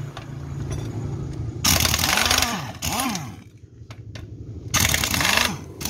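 Pneumatic impact wrench hammering in two short bursts, about two seconds in and again near the end, as it undoes bolts.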